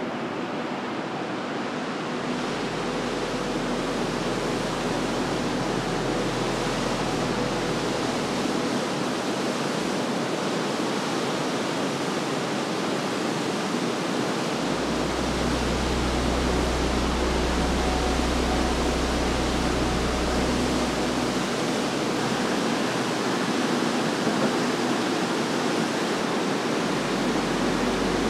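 A waterfall rushing, a steady roar of white water that slowly grows louder as it is approached.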